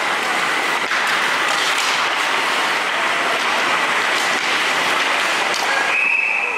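Spectators clapping and cheering in an ice hockey rink, a steady dense noise.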